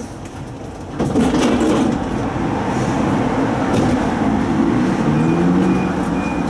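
Inside a Siemens Combino low-floor tram's cab, its running noise steps up about a second in. From about five seconds in, a low electric whine rises in pitch as the tram starts to pull away, over a short high beep repeating about three times a second.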